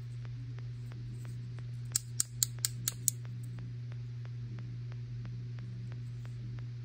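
Six sharp clicks in quick succession, about two seconds in, as a second-generation iPod shuffle is handled and turned over in the fingers, over a steady low hum.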